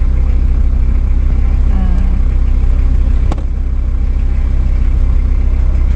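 Low, steady rumble of a car's engine and road noise heard from inside the cabin while driving slowly, with a single sharp click about three seconds in.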